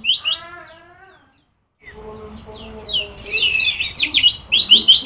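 Caged lemon-bellied white-eye (kecial kuning) singing: a fast run of high repeated notes with a lower, falling warble under it, a break of about half a second, then varied slurred whistles, and the rapid repeated notes return near the end.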